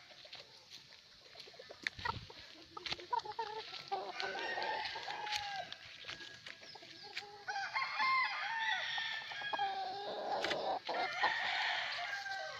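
Several gamefowl roosters crowing over one another, with shorter clucking calls and a few sharp clicks in between.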